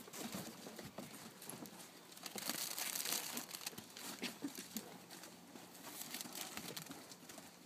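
Plastic cellophane flower sleeves crinkling and rustling as sleeved hydrangea bunches are handled in a cardboard flower box and its cardboard lid is fitted on, louder near the middle.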